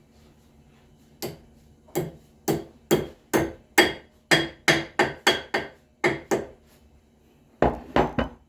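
Hammer striking metal: a run of about a dozen sharp, ringing blows at a quick, even pace, then a short pause and three more near the end.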